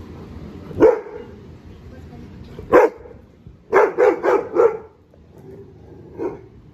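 Rottweiler barking in deep, sharp barks: one about a second in, another near three seconds, then a quick run of four, and a fainter bark near the end.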